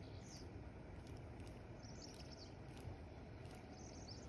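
Quiet outdoor ambience: a steady low rumble with short high bird chirps coming in brief clusters every second or two.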